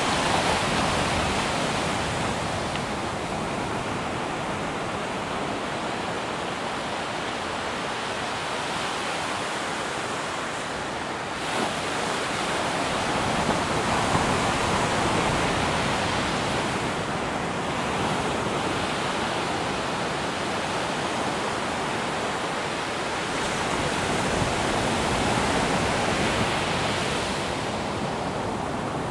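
Ocean surf breaking and washing up a sandy beach: a steady rush of noise that swells louder a few times as bigger waves come in.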